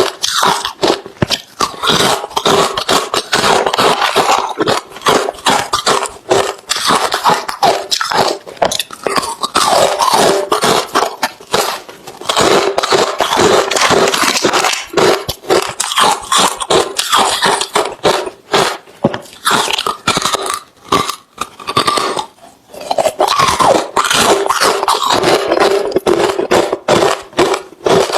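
Close-miked chewing of hard refrozen crushed ice: a rapid, irregular run of loud crunches, with short pauses about twelve seconds in and again a little past twenty seconds.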